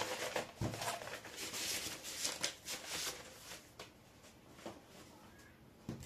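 Vinyl LP sleeves being handled: paper and cardboard rustling and sliding, with a soft knock about half a second in. The handling dies down to faint rustles from about halfway.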